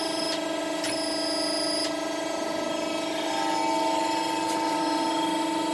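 Steady whine of a running 100-ton press brake's machinery, several steady tones held together. A thin high whistle sounds for the first two seconds, and another steady tone joins a little past halfway.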